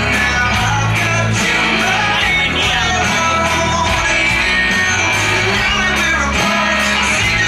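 Rock-style song with singing, guitar and a steady beat, played loud as the backing track for a stage performance.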